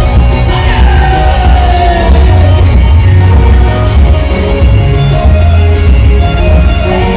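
Live gospel worship band playing loudly with a heavy bass beat and sustained notes; a long note slides down in pitch about a second in.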